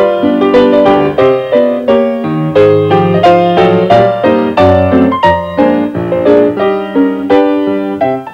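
Solo piano music playing a brisk run of notes, several a second, over a bass line.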